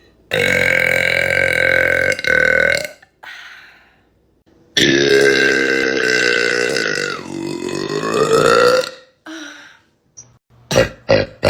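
A young woman belching twice, both long and drawn out. The first lasts about two and a half seconds; the second, a few seconds later, lasts about four seconds, and its pitch sinks and then climbs back up.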